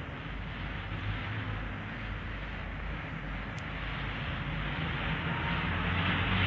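Steady background noise of an old recording, an even hiss with a low hum, growing slightly louder toward the end.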